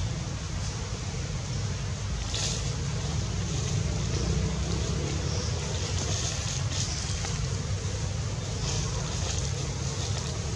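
Steady low rumble of wind on the microphone, with a few brief faint hissy rustles.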